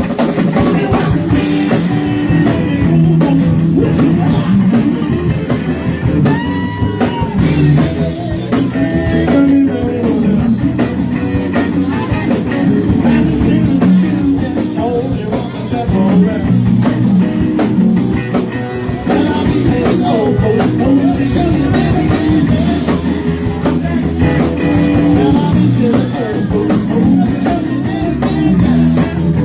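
Live rock band playing, with electric guitar over bass and drums in a steady groove.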